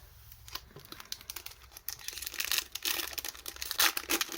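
Foil Pokémon booster pack wrapper being torn open and crinkled. The crackling starts softly and grows dense and louder from about two seconds in.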